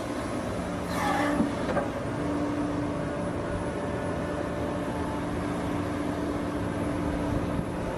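Diesel engine of heavy earthmoving machinery running steadily, with a brief louder swish and a couple of knocks about a second in.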